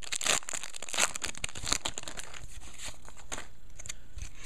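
Trading card pack wrappers crinkling and tearing as packs are opened and the cards handled, a dense irregular crackle that is busiest in the first couple of seconds and thins out after.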